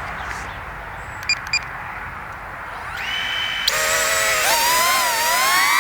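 Two short beeps, then the DJI Neo's propellers spin up about three seconds in: a whine of several pitches together, rising and falling as the small quadcopter lifts off, over a steady background hiss.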